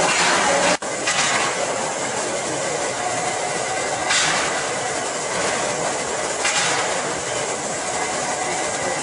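Steam hissing from the cylinder drain cocks of GWR King class 4-6-0 No. 6024 King Edward I: a steady rushing hiss with louder gusts about four and six and a half seconds in. The sound breaks off for an instant just under a second in.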